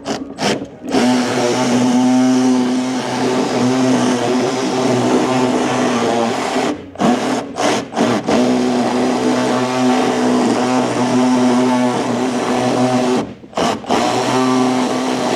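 A handheld power tool's electric motor running in long steady stretches with a few short stop-start bursts about halfway through, spinning out the bolts that hold the heater core to the firewall.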